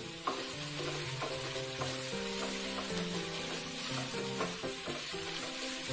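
Sliced onions with crushed ginger-garlic and curry leaves sizzling in hot coconut oil, stirred in a nonstick pan with a silicone spatula. Soft background music with held notes plays underneath.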